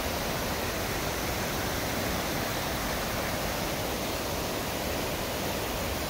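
Ryuzu Falls, a long cascading waterfall, heard up close: a steady, even rush of water.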